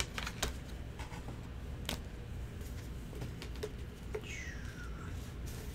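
Light clicks and taps of trading cards and sleeves being handled on a table, with a short squeak falling in pitch about four seconds in.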